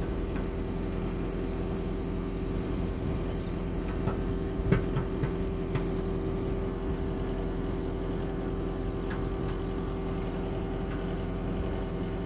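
Backhoe's diesel engine running steadily while it digs, with a laser-level receiver on the grade rod beeping at a high pitch over it: short beeps a few per second, at times held as one tone or sped up into quick beeps, signalling where the rod sits against the laser beam. A single knock a little under five seconds in.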